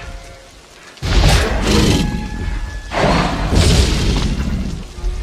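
Two deep booms about two seconds apart, the heavy footfalls of a Tyrannosaurus rex in a film soundtrack, with music underneath.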